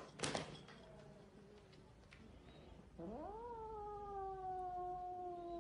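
Cat fight: a short sharp burst of scuffling or hissing just after the start, then, about three seconds in, a cat's long drawn-out yowl that rises quickly and then slowly sinks in pitch.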